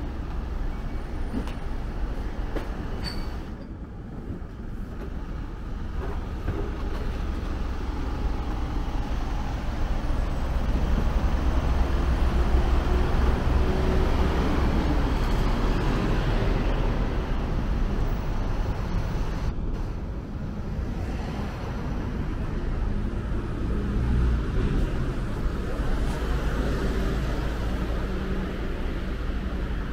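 Street traffic noise: a steady rumble of passing vehicles that swells louder for several seconds in the middle.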